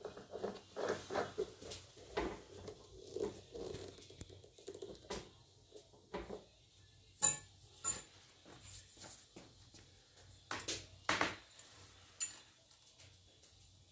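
Hand handling and light clicking and scraping of hard plastic as an air intake filter is twisted into the threaded port on an air compressor's plastic pump cover, with a few sharper knocks about 7 and 11 seconds in.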